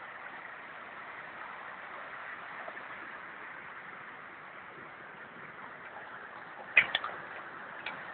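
Heavy ice rain (hail mixed with rain) pouring down in a steady hiss. Near the end come a few sharp knocks, the first the loudest.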